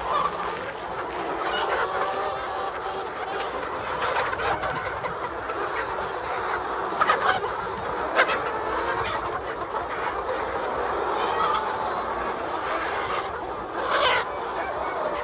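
A flock of laying hens clucking and calling over one another, with a few sharp taps scattered through.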